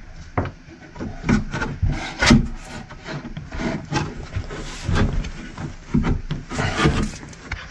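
A 15-inch passive radiator's frame scraping, rubbing and knocking against the edges of a subwoofer enclosure's cut-out as it is worked into the hole, in irregular strokes. It will not seat: the new radiator's frame is near perpendicular and does not fit the pre-cut hole.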